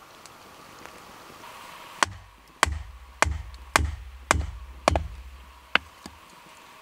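A wooden baton knocking on the back of a hatchet head, driving the blade down into a short log to split it for a Swedish fire torch. There are seven sharp knocks about half a second apart, starting about two seconds in.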